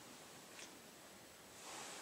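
Near silence: faint room tone, with a soft rustle near the end.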